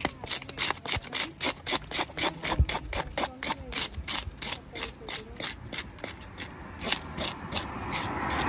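Knife blade scraping the scales off a whole tilapia on a wooden chopping stump, in quick repeated strokes about three or four a second. Near the end a rushing noise swells and grows louder.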